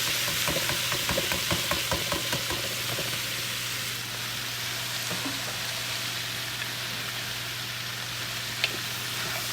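Cabbage frying in melted butter in a pan: a steady sizzle with quick crackles over the first three seconds, easing off a little after that, over a steady low hum.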